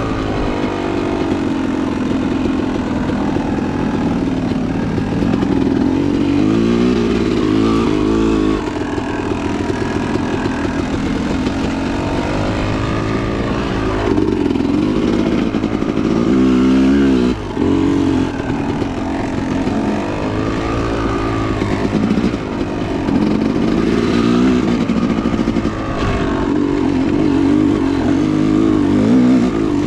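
Dirt bike engine being ridden hard, its pitch rising and falling over and over as the throttle opens and closes and it shifts through the gears.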